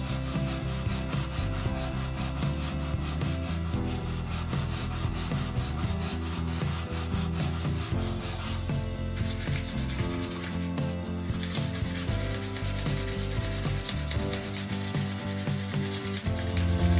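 Abrasive cloth strip pulled rapidly back and forth, shoe-shine style, around a cricket bat's cane handle, a fast, steady rubbing of grit on wood. Later, sandpaper is rubbed by hand over the bat's willow shoulder.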